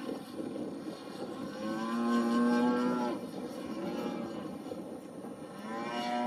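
Radio-controlled Goldwing SLICK 540's 30cc two-stroke engine and propeller running in flight, with the note swelling into a held, steady tone for about a second, once about two seconds in and again near the end, as the throttle is opened during aerobatics.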